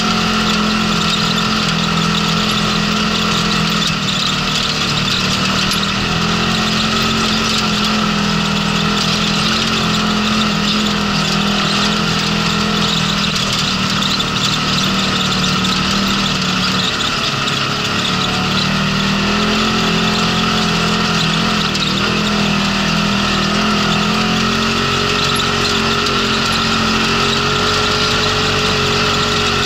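Polaris RZR side-by-side's engine running steadily as it climbs a gravel road, its pitch rising and falling a little with the throttle, over a steady rush of tyre and wind noise.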